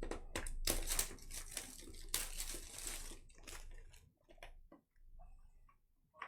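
Plastic wrapping and card packaging crinkling and tearing as trading-card packs are opened: dense crackling rustle for about three seconds, then a few scattered clicks and rustles that die away.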